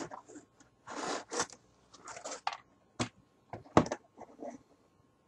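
Hard plastic toy submachine gun being handled: irregular scrapes and rustles with a few sharp clicks, the loudest click a little under four seconds in.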